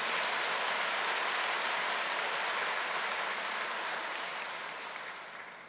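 A large congregation applauding, steady and then fading out near the end.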